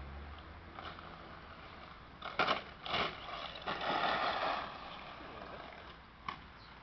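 HPI Blitz radio-controlled short-course truck driving past on loose gravel, its tyres scrabbling and throwing grit. The loudest, roughest stretch lasts about two seconds and starts about two and a half seconds in, as the truck passes close.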